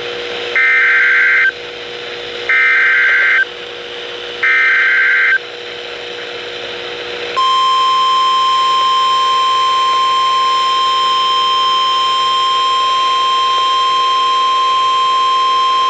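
NOAA Weather Radio Emergency Alert System (SAME) header: three one-second bursts of screeching digital data tones about a second apart, then the steady 1050 Hz weather-radio warning alarm tone, held for about nine seconds. Together they mark the start of a new alert, a severe thunderstorm warning.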